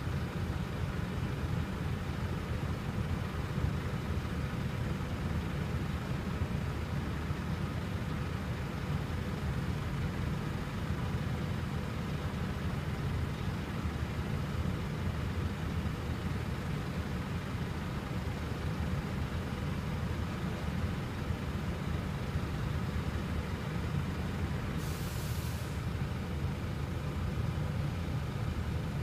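Diesel coach engines idling steadily while parked, a continuous low rumble. A brief hiss cuts in near the end.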